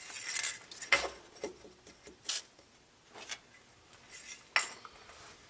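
Light metallic clicks and taps of hand tools and small steel parts being worked at an A/C compressor clutch: a sharp click about a second in, then a few more spaced out.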